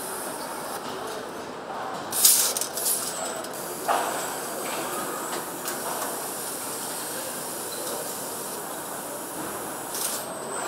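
Automated engine assembly line machinery running with a steady mechanical din, broken by a short, loud hiss of air about two seconds in and a sharp knock near four seconds, with a few lighter clicks.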